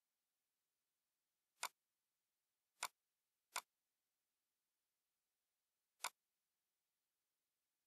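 Four sharp computer mouse clicks, irregularly spaced, with silence between them.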